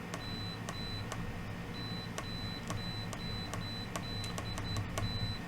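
Kaiweets KM601 multimeter's continuity buzzer giving about ten short, high beeps, each coming as the test probe tips touch with a small click. The continuity response is okay but not stellar.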